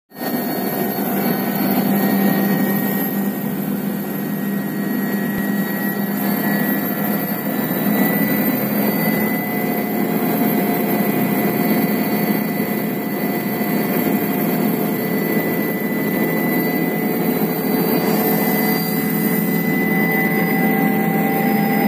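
Helicopter's turbine engine running with the aircraft on the ground, a steady whine with several high tones, heard from inside the cabin. The tones creep slightly higher in pitch over the last several seconds.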